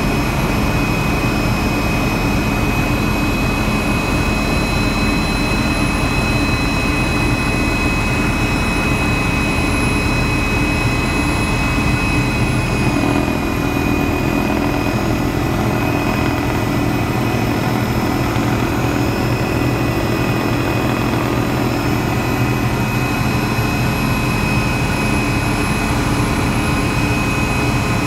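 Helicopter in flight, heard from on board: steady engine and rotor noise with a constant high whine over it. The whine shifts slightly in pitch about halfway through.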